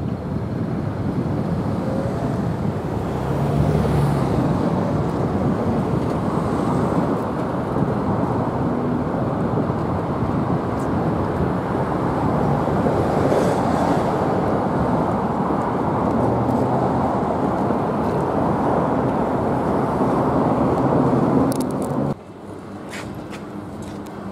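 Steady running noise of the Australind diesel railcar heard from on board: a continuous rumble of engine and wheels on the rails. It drops off abruptly near the end to a much quieter steady hum.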